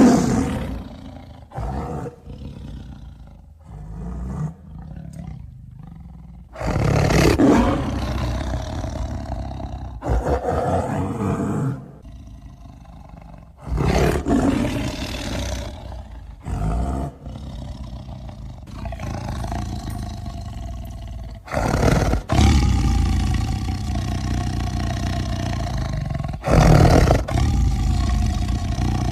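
Tiger roaring and growling: a series of loud roars and snarls, some short and some long growls lasting several seconds, with brief pauses between them.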